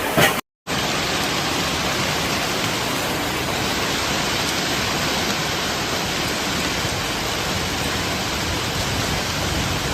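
Heavy rain pouring down, a steady, dense hiss, briefly cut off for a moment about half a second in.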